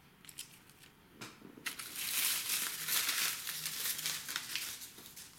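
Paper name slips rustling and crinkling as they are handled: a few light ticks at first, then a dense rustle from about two seconds in that fades near the end.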